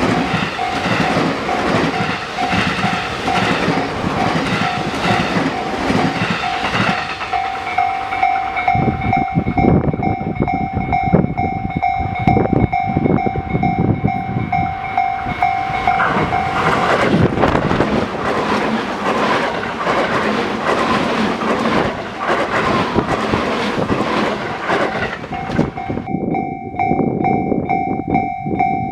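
Level-crossing warning bell ringing in a steady repeating tone while a Tobu Tojo Line train passes, its wheels clicking over the rail joints. The bell stops about two-thirds of the way through as the train noise goes on, then starts ringing again near the end.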